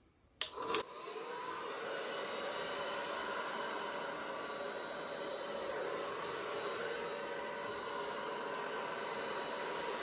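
High-powered hair dryer on its low, cool setting, starting just after two sharp clicks about half a second in. It then runs steadily, a rush of air with a steady whine.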